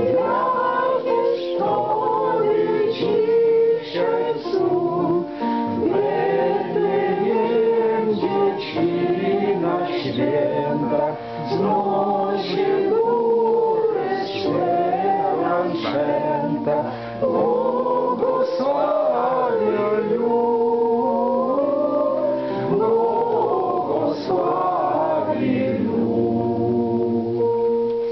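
A mixed group of men's and women's voices singing a Christmas carol together, choir-like, with long held notes.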